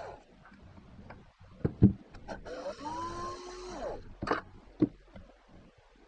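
Cordless drill-driver working a screw on a washing machine motor: its motor whine rises, holds for about a second and a half a little past midway, and winds down. Sharp knocks from metal parts being handled come just before and after the run, the loudest a little under two seconds in.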